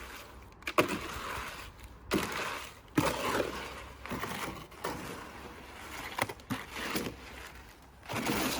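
Wet cement being mixed by hand in a container: a run of gritty scraping, sloshing strokes, each starting sharply, about one a second.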